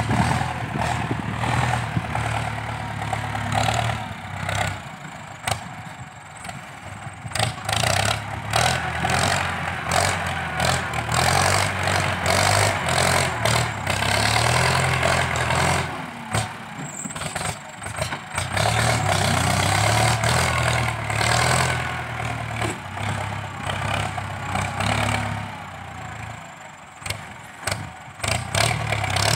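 Ford 6640 tractor's diesel engine working under load as its front blade pushes soil. The engine note drops back and picks up again several times.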